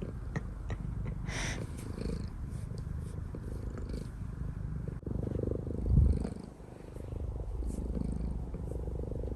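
Domestic cat purring steadily, close up, with a few faint clicks and one low thump about six seconds in.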